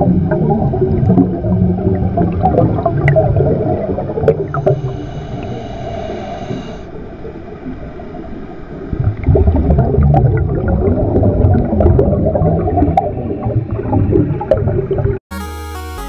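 Underwater ambience sound effect: dense bubbling and gurgling water with many small clicks, and a brief higher ringing tone about five seconds in. Near the end it cuts off abruptly into video-game-style music.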